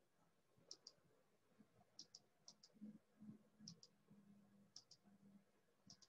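Faint computer mouse clicks: six quick double clicks, each a press and release, spaced about a second apart. A faint low hum sits under the middle of them.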